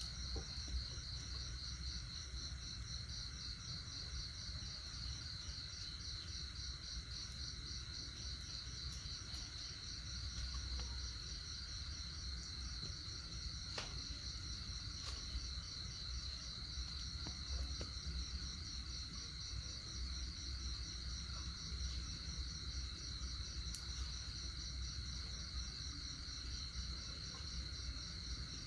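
Insects trilling steadily: a high, fast-pulsing drone on two close high pitches, over a low background rumble.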